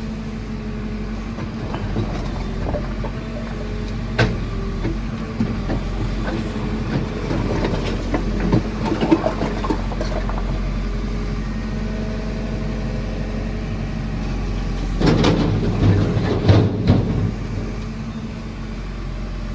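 JCB 4CX backhoe loader's diesel engine running steadily under hydraulic work. A single clank comes about four seconds in, and a burst of knocks and scraping near the end as the bucket works the rubble.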